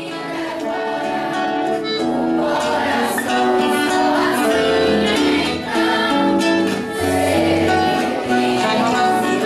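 A choir singing held notes with instrumental accompaniment.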